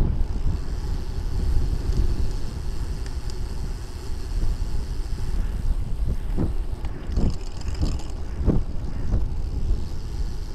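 Wind buffeting the microphone of a bicycle-mounted camera while riding, with steady road rumble and a few dull knocks in the second half as the bike goes over bumps.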